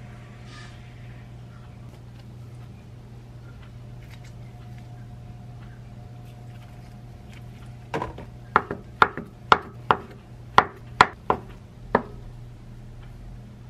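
A kitchen knife slices a tofu bar into rounds on a wooden cutting board: starting about eight seconds in, there are about ten sharp knocks of the blade on the board, a few a second, over some four seconds. Before that there are only faint small sounds over a steady low hum.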